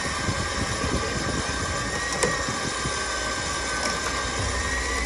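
A motor running steadily under load, with a thin high whine that wavers a little in pitch and rises near the end.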